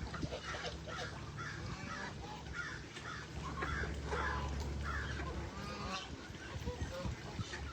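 Geese honking over and over in short calls. A steady low hum runs underneath and stops about five and a half seconds in.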